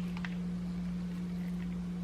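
A steady low hum, with a few light clicks about a quarter second in and again near the end.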